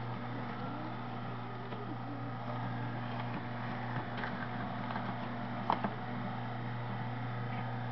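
Omega 8003 low-speed masticating juicer running steadily, its motor humming while the auger crushes apple pushed down the feed chute with the plunger. There are a few faint clicks, and a sharper one about six seconds in.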